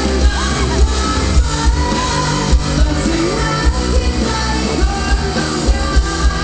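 Live rock band playing loud through a concert PA: electric guitars, bass and a steady drum beat, with a male lead singer.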